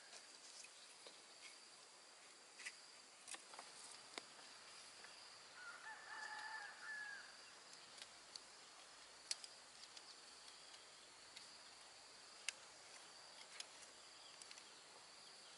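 A rooster crowing faintly once, about six seconds in, over a faint steady high whine such as insects make. Scattered sharp clicks and taps come from bamboo poles being handled and fitted together.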